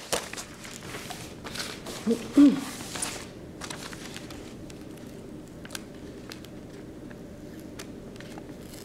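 Clear tape being peeled off printed paper sheets: crackling, crinkling and sharp ticks, busiest in the first three seconds, then only sparse faint ticks. A brief pitched sound about two and a half seconds in is the loudest moment.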